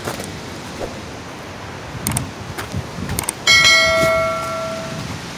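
A subscribe-button sound effect: a few mouse clicks, then a bright notification bell ding about three and a half seconds in that rings out for about a second and a half. Under it runs a steady rush of falling water.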